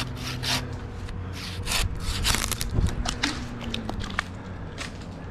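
Silky handsaw cutting white pine, a run of uneven short strokes through the wood.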